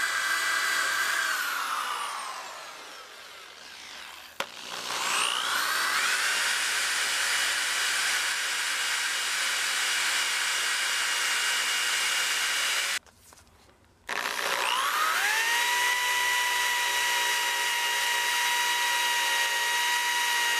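DeWalt random orbital sander with a fine-grit disc sanding the polished steel head of a hatchet: a steady motor whine. The whine winds down about two seconds in and spins back up about two seconds later. It cuts out briefly past the middle, then spins up again and holds steady.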